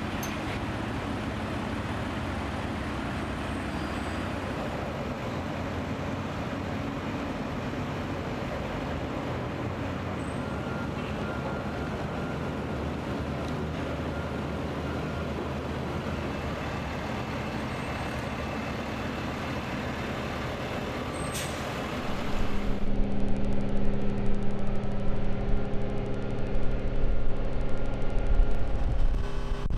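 Truck engines running steadily among port traffic, a constant mechanical noise with a low hum, with one short sharp sound a little over twenty seconds in. About twenty-two seconds in it changes abruptly to a louder rumble with a steady droning hum.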